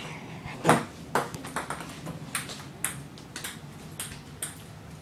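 Table tennis rally: the plastic ball clicks sharply off paddles and the tabletop, about two hits a second.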